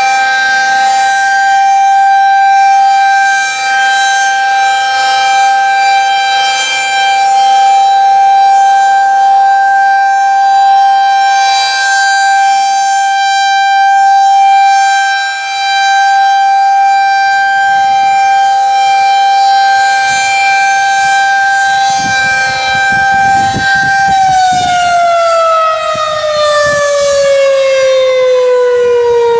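Federal Signal 2001-SRNB rotating outdoor warning siren sounding a test on a steady tone. About 24 seconds in, it begins winding down, its pitch falling steadily.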